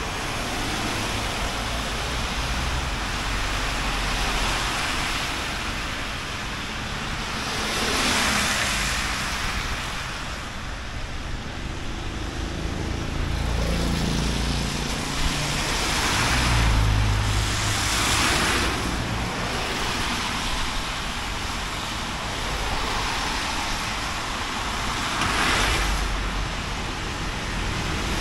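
Road traffic on wet pavement: several cars pass one after another, each a swelling and fading hiss of tyres on a wet road, over a steady background hiss.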